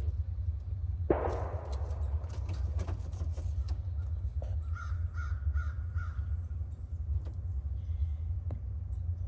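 A sudden bang about a second in that rings out and fades, then a bird calling about four times in quick succession near the middle, over a steady low rumble.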